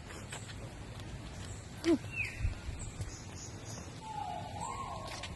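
Mixed aviary birds calling: a short falling call about two seconds in, then a longer wavering call about four seconds in, over faint high chirps.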